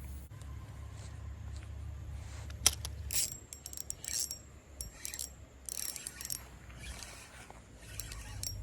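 Fishing reel clicking and rattling: one sharp click, then irregular bursts of clicking, over a steady low hum.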